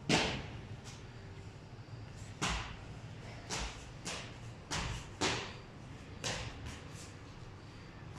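A child's shoes landing on concrete stair steps as he hops down them: about seven thumps at uneven intervals, the first the loudest, each ringing briefly in the stairwell.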